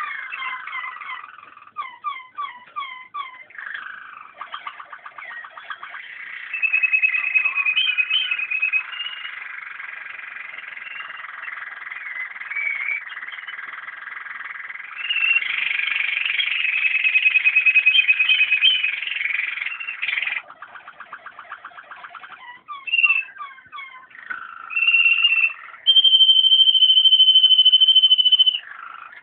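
Waterslager (Malinois) song canary singing: a varied song of fast rolling trills and held whistled notes, ending in a long steady high whistle of about three seconds near the end.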